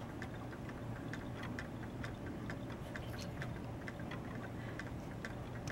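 A crowd of solar-powered dancing toys ticking as their little solar-driven rocking mechanisms swing, a scatter of small sharp clicks several times a second, out of step with one another.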